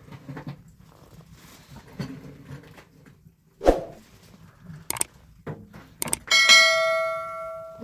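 A dull thud, a few sharp clicks, then a metal object struck and ringing with a clear tone that fades over about a second and a half.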